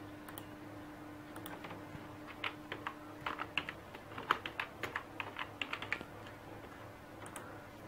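Light, irregular clicking of computer keys, about a dozen clicks over some three seconds, over a faint steady hum.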